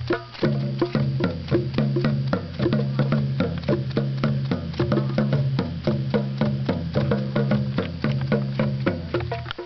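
Music with a quick, busy percussive beat of sharp wood-block-like strikes over repeating low bass notes.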